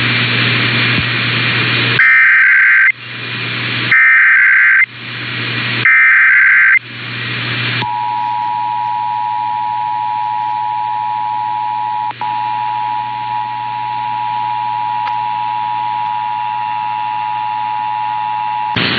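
Emergency Alert System test: after a couple of seconds of hiss come three SAME header data bursts, each about a second long and about a second apart, as a harsh digital warble. About eight seconds in, the steady two-tone EAS attention signal (853 and 960 Hz) begins and holds.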